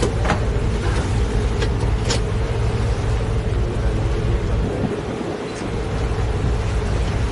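A steady engine drone: a constant low rumble with a held hum, with a few faint clicks in the first couple of seconds.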